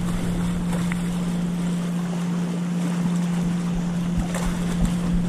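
Wind buffeting the microphone over gently lapping lake water, with a steady low hum throughout and a few faint ticks.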